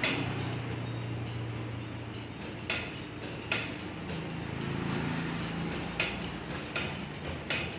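Manual hydraulic motorcycle lift being pumped by its foot pedal, giving a metallic click or knock with each stroke, about six in all at uneven spacing, over a low steady hum.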